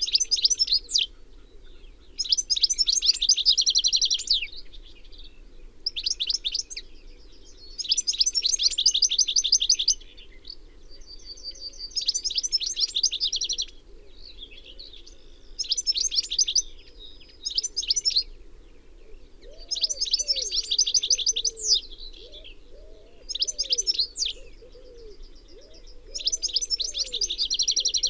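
European goldfinch (Carduelis carduelis) singing: rapid twittering phrases a second or two long, separated by short pauses and repeated again and again, over a faint steady low hum.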